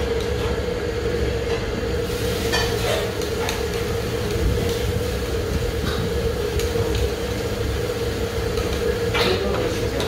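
Jjajangmyeon noodles being slurped and chopsticks clicking against a ceramic bowl, in a few short sudden noises, over a steady low mechanical hum with one constant tone.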